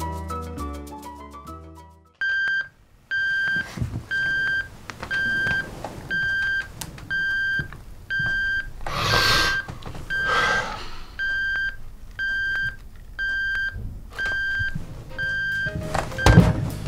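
An electronic alarm clock beeping steadily, one short beep on a single pitch a little over once a second, waking someone in bed. Rustling cuts in twice midway, and a thump comes just after the beeping stops.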